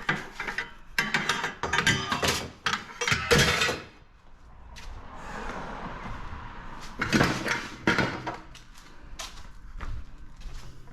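Clanks, knocks and rattles of scrap aluminum chair parts being handled and dropped, with a rushing noise for a couple of seconds in the middle.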